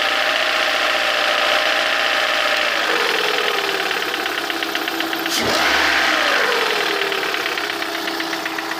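VAZ-21126 1.6-litre sixteen-valve engine, warmed up, running at idle with a distinct regular knock whose cause the owner does not know. About five seconds in it is blipped once, rising briefly and settling back to idle.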